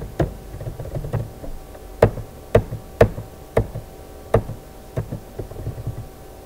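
Computer keyboard keys being struck, about a dozen irregular sharp keystrokes with several louder, heavier presses among softer taps, as terminal commands are entered.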